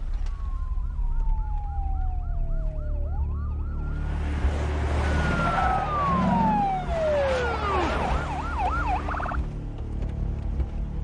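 Several electronic police car sirens sounding together. Long wails fall and rise in pitch over a fast yelp that sweeps about four times a second, with a second wail winding down in the middle and a brief rapid warble near the end. A low rumble and rushing noise of arriving vehicles swell in the middle.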